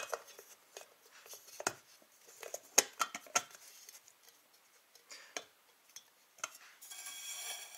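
Scattered light clicks and metallic knocks as the lid of an MSR Pika teapot is pressed into place and its folding handle is raised and handled, with a brief hiss near the end.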